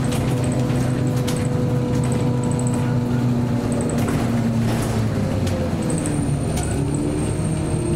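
Scania L94UB city bus running under way, heard from inside the cabin: a steady engine and drivetrain hum with occasional clicks and rattles. The engine note shifts about five seconds in.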